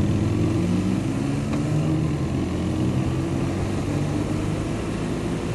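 A vehicle's engine running steadily under way, its pitch drifting slightly up and down, over continuous road and wind noise.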